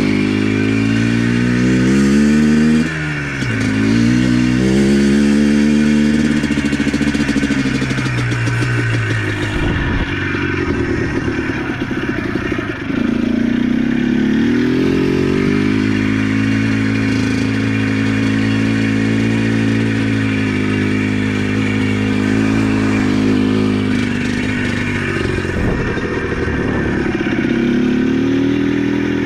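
ATV engine running under way, its revs rising and falling with the throttle and dropping away briefly several times.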